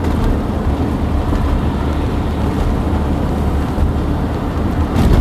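Steady in-cabin road noise of a car driving on worn asphalt: a low tyre and engine rumble, with a short thump near the end.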